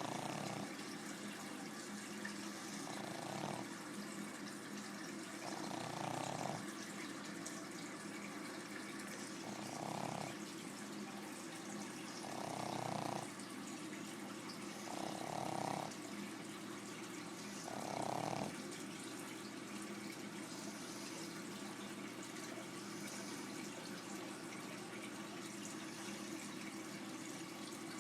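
Pug snoring: about seven snores, one every two to three seconds, which stop about 18 seconds in, over a steady low hum.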